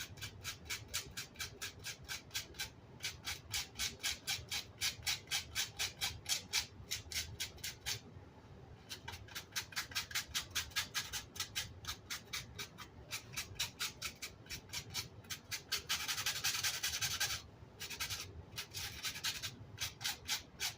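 Rapid back-and-forth hand scrubbing on amplifier grill cloth, about four or five scratchy strokes a second. It stops for about a second around eight seconds in, becomes a steady rasp for about a second and a half near sixteen seconds, then ends in a few scattered strokes.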